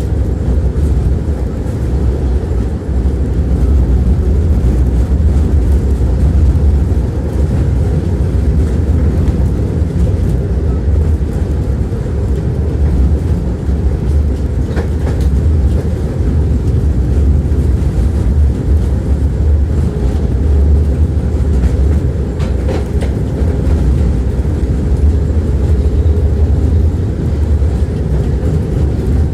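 Tram running along the rails, heard from inside the passenger car: a steady low rumble of wheels and running gear, with a couple of faint clicks partway through.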